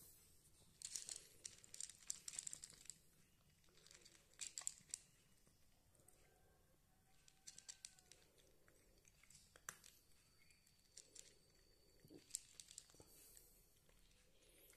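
A cat chewing dry kibble: faint crisp crunches in short bursts with pauses between, the busiest bursts about a second or two in.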